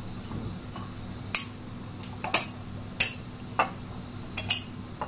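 Irregular sharp clinks of metal (the iron wire and the heated iron rod) against a glass bottle as it is handled, about seven of them, starting about a second in.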